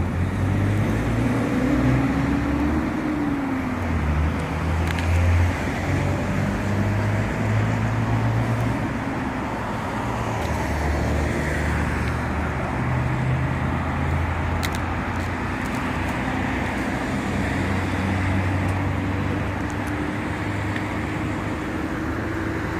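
Steady road traffic: the hum and tyre noise of passing cars, with engine notes slowly rising and falling.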